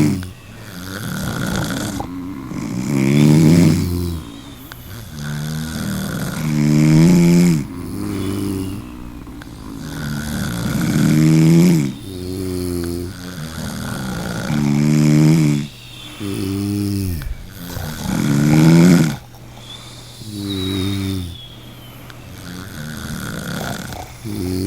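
A person snoring in a steady rhythm, a loud rattling snore alternating with a softer one, about one breath cycle every four seconds.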